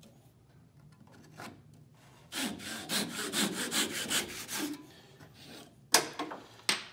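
A fine-toothed Japanese-style pull saw cutting through a thin cedar strip in a wooden miter box: about two seconds of quick short strokes, about five a second, making a square 90-degree crosscut. A sharp knock follows near the end.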